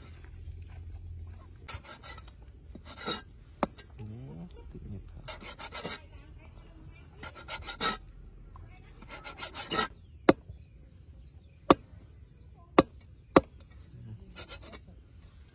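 Cleaver chopping cleaned goat-head pieces on a wooden chopping block. Quick runs of rapid slicing chops come first, then four single hard chops, the loudest sounds, near the end.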